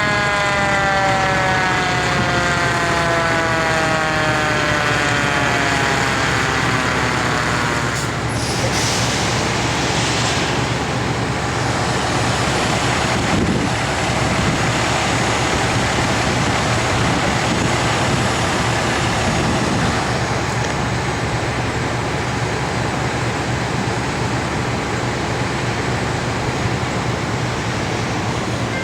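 High wind blowing as a loud, steady roar. For the first several seconds a pitched whine slides slowly downward underneath it.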